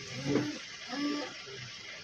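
Brief, indistinct voices, two short utterances, over a steady background hiss.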